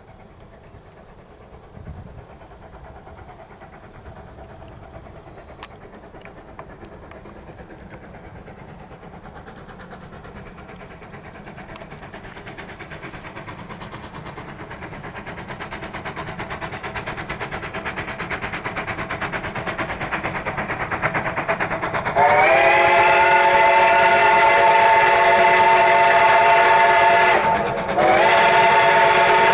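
Durango & Silverton narrow-gauge steam locomotive #493, a K-37 Mikado, working toward the listener, its running sound growing steadily louder. About three-quarters of the way in its steam whistle sounds a long, loud blast, breaks briefly, then sounds again: whistling for the road crossing ahead.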